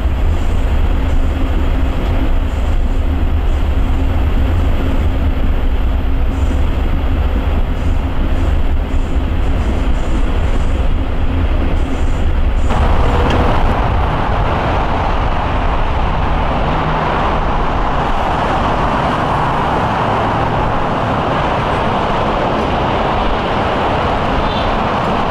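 Amtrak passenger train running along the track, heard from inside the car as a steady low rumble. About halfway through it cuts abruptly to steady road traffic noise from a busy freeway.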